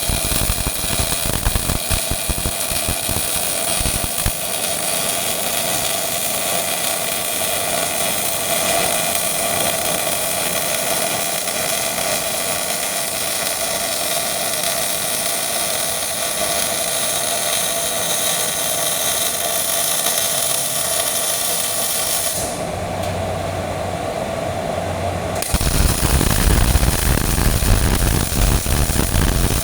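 MIG welding arc from a Millermatic 251 running a bead on steel pipe fittings, with a steady crackling buzz. The arc stops for a few seconds about three-quarters of the way through, then strikes again with a louder, rougher crackle.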